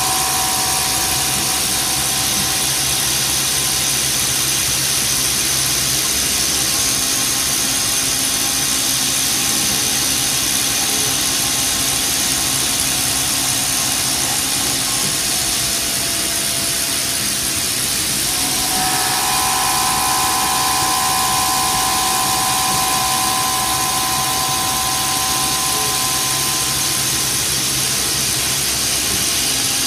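CNC vertical milling machine running, its end mill cutting linen phenolic held in a rotary indexer: a steady hiss with a high whine that stops about a second in and comes back about two-thirds of the way through.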